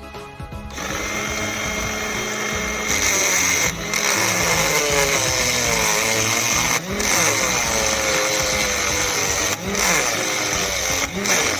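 A 775 DC motor runs with a high whine while a metal file is held against the spinning pressure-cooker safety valve, scraping it down to size. The pitch wavers as the load changes. It grows louder about three seconds in and dips briefly four times.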